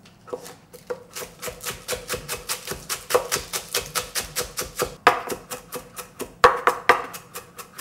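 Chef's knife chopping green onion and garlic on a wooden cutting board: fast, even knocks of the blade on the wood, about five a second, with a few harder strokes midway and near the end.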